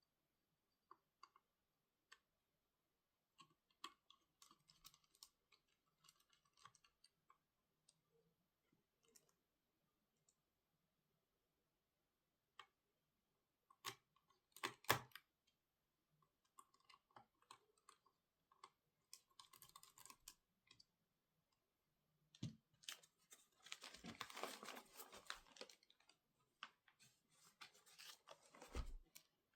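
Faint, scattered clicks and taps of hands working on a laptop, with a louder cluster of clicks about halfway through and a stretch of denser clicking and rustling near the end.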